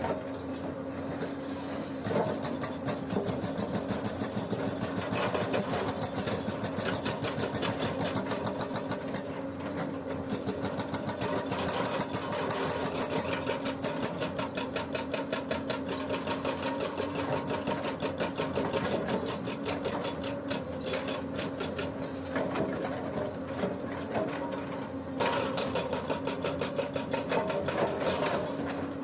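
Hydraulic breaker on a Hyundai 210LC-7 excavator hammering in a fast, even stream of blows, over the steady hum of the excavator's engine. The hammering picks up about two seconds in and keeps going, easing slightly for a few seconds before coming back stronger near the end.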